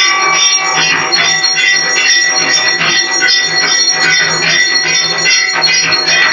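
Temple bells ringing continuously for arati: steady ringing tones over a rapid, unbroken clatter of strikes.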